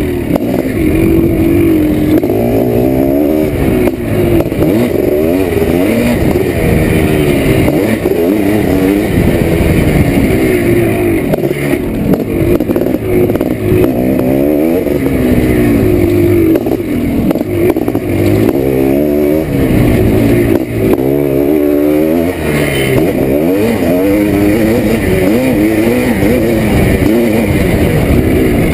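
1987 Yamaha YZ490's single-cylinder two-stroke engine revving hard on a motocross track, its pitch climbing with each burst of throttle and dropping back at shifts and corners, over and over.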